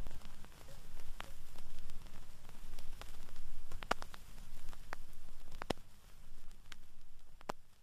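Vinyl record surface noise after the music has ended: a steady crackle and hiss over a low rumble, with sharper pops recurring about every two seconds.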